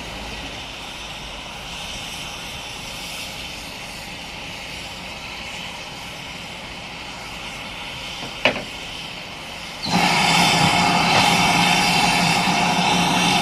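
Steam locomotive standing at the platform with a steady hiss of steam. A single sharp knock comes about eight and a half seconds in. Then, about ten seconds in, a much louder rush of escaping steam starts abruptly and keeps going.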